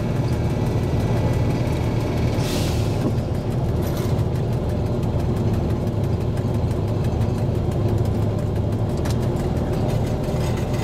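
SU45 diesel locomotive's twelve-cylinder diesel engine running steadily under way, heard from the cab as a low drone, with a brief hiss about two and a half seconds in.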